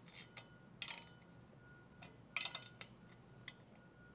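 A 9/16-inch steel wrench clinking on the bolts and steel bar as a cross clamp is tightened: a few faint, separate metallic clinks with a brief ring, spaced irregularly.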